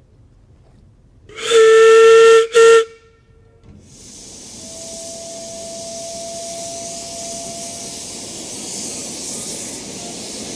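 Narrow-gauge steam tank locomotive's whistle, one long blast followed at once by a short one. Then steam hisses steadily from its open cylinder drain cocks.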